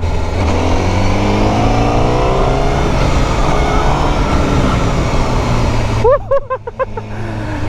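Honda CBR1000RR-R Fireblade SP's inline-four engine pulling under way with an Akrapovič exhaust, its pitch rising for a few seconds under loud wind rush. About six seconds in, the wind noise drops and a brief voice is heard over the engine.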